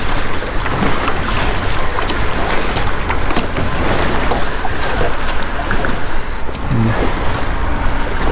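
Wind rushing over the microphone in a steady low rumble, with water lapping around the dock pilings.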